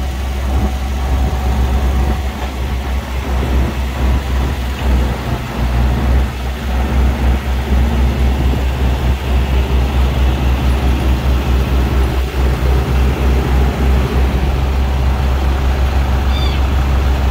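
Bobcat skid-steer loader's engine running close by with a strong low rumble that throbs in pulses, as the loader pushes a caboose wheel truck into place.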